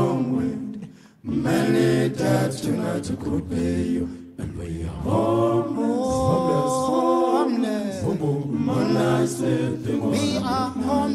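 A cappella vocal music: voices singing in harmony, with a long held chord about six seconds in.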